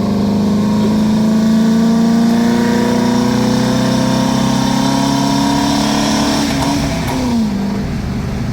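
VW Brasília's air-cooled 1600 flat-four engine pulling under acceleration, heard from inside the car. Its pitch climbs steadily for about six seconds, then drops quickly about seven seconds in.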